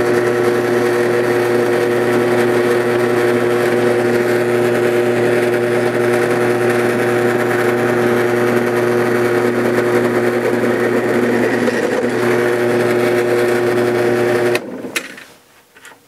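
Drill press motor running steadily with a 4-pin roll crimper chucked in it, spinning down onto the mouth of a 12-gauge shotshell hull to roll crimp a slug load. The motor shuts off abruptly near the end and winds down.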